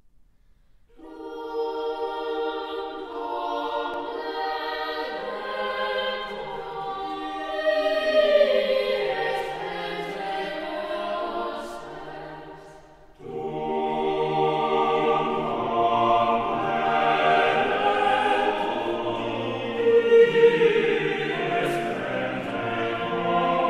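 Choir singing: sustained choral music in two long phrases, with a brief break about halfway through.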